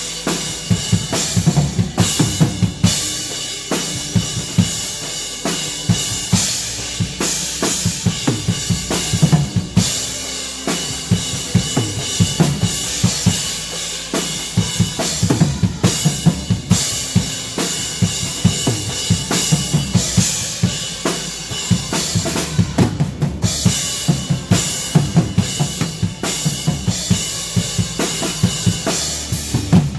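Drum kit played through a worship song: a steady groove of kick drum and snare hits under a continuous cymbal wash.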